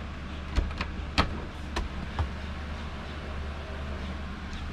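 Latch clicks and light knocks as the lower door of a boat's galley refrigerator-freezer is pulled open: a handful in the first two seconds, the sharpest about a second in. A steady low hum sits under them throughout.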